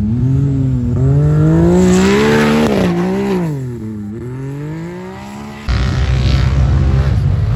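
Side-by-side UTV engine revving hard as it climbs a sand dune: the pitch rises for a couple of seconds, dips about four seconds in, climbs again and fades. Near the end it cuts abruptly to another UTV engine running loud and steady.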